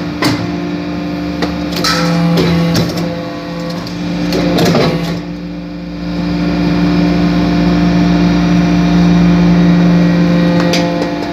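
Hydraulic metal-chip briquetting press running: the steady hum of its hydraulic pump and motor, with a few sharp metallic knocks and rattles in the first few seconds as the ram works the metal chips. The hum dips briefly about halfway through, then runs steady and a little louder.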